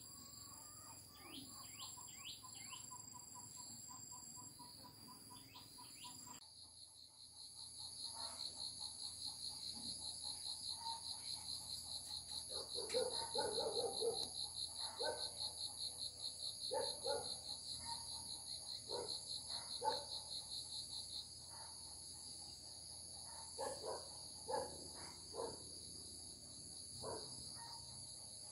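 Crickets or similar insects trilling steadily at a high pitch, with a fast pulsing trill coming in abruptly about six seconds in and stopping about three-quarters through. Short scattered chirps and clicks sound over it.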